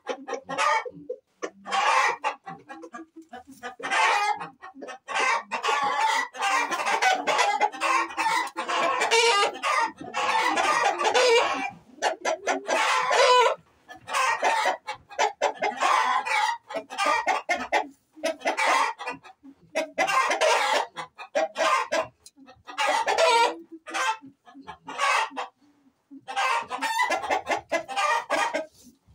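Chickens clucking and roosters crowing, calling again and again in bursts with short pauses between.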